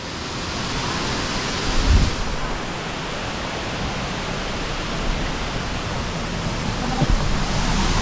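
Waterfall pouring steadily into a pool: an even rush of falling water, with a brief low thump about two seconds in.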